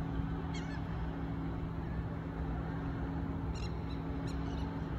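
A steady low motor hum that holds one pitch, over a low rumble. A short high falling chirp comes about half a second in, and a few faint high clicks near the end.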